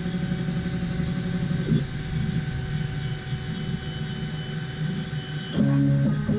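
Stepper motors of a homebuilt CNC machine whining as the gantry moves the diode-laser head through a cutting pass, over the steady hum of a fan. Guitar music comes in near the end.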